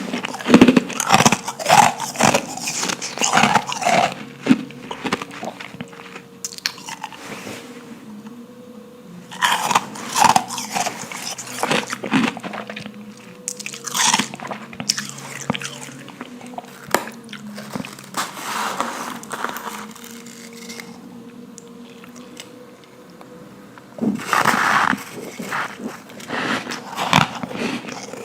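Close-up biting and chewing of powdery ice: bursts of sharp crunches as pieces are bitten off, densest in the first few seconds and again about 10, 19 and 25 seconds in, with softer crunchy chewing between.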